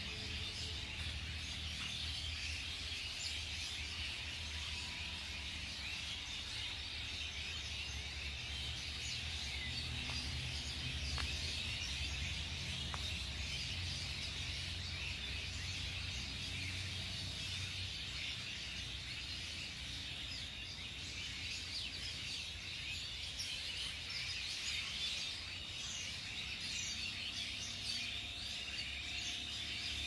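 Outdoor ambience of many small birds chirping continuously, with a faint steady high tone and a low rumble underneath.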